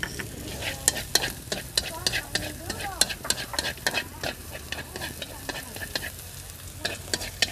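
Chopped scallions frying in hot oil in a wok, sizzling with many sharp, irregular pops and crackles as they are stirred with a chopstick.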